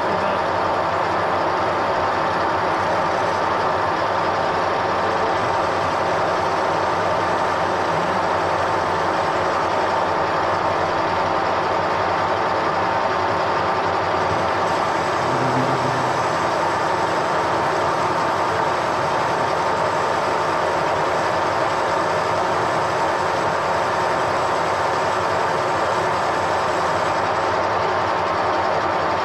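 Metal lathe running steadily, with a constant whine from its drive over an even mechanical din, having spun up just before.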